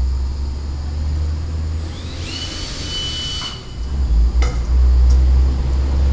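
Cordless drill motor spinning up with a rising whine, then running steadily for about a second and a half before stopping; a sharp click follows about a second later, over a steady low rumble.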